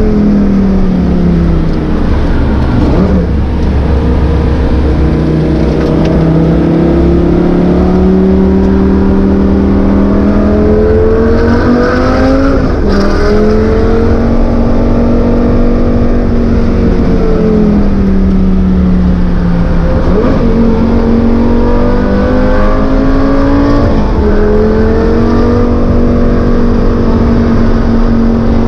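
Lamborghini Gallardo's V10 engine heard from inside the cabin at speed on a race track. The revs climb and fall, and the pitch jumps abruptly about four times as gears change.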